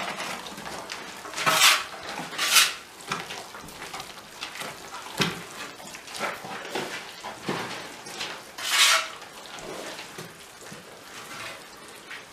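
Kitchen utensils and dishes clinking and scraping as a cake is being mixed, in irregular small knocks with three louder strokes.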